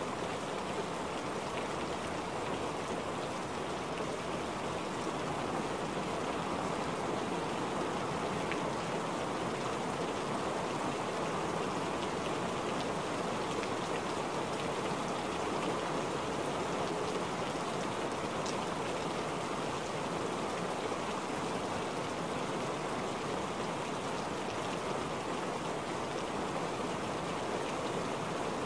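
Steady rain falling on wet ground and puddles: an even, unbroken hiss of drops.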